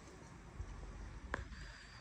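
A single sharp click about a second and a half in, over a low rumble.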